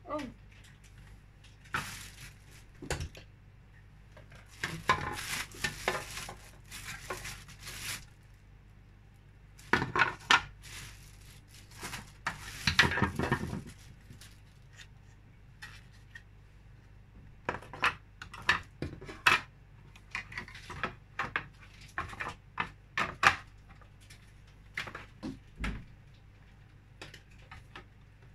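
Hard plastic parts of a tower fan and its base knocking, clicking and clattering as the fan is handled and its stand fitted: irregular separate knocks, with a few denser runs lasting a couple of seconds.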